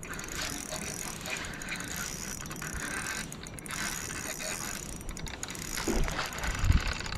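Fishing reel's gears and clicking mechanism running steadily while a hooked steelhead is played on light line, with a few low bumps near the end.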